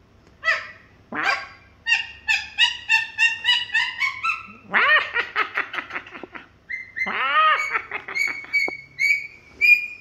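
Princess parrot calling: a rapid string of short chattering notes, then two longer harsh calls, then quick repeated short high notes near the end.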